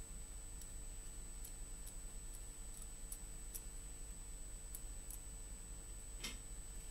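Faint, light metallic clicks and taps at irregular intervals as a steel connecting rod is fitted into a stainless-steel ground probe, with one sharper knock about six seconds in.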